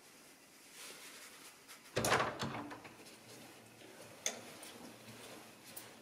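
A flat's wooden front door being opened and shut: a loud clunk and rattle of handle and latch about two seconds in, then a single sharp latch click a couple of seconds later.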